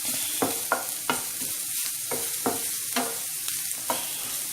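Grated carrot and cashews frying in oil in a pan with a steady sizzle, stirred with short scraping strokes about twice a second.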